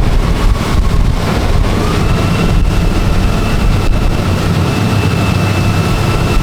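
Tour boat running through a fiord: strong wind buffeting the microphone over the low drone of the boat's engines, with a faint steady whine that rises in pitch about a second in and then holds.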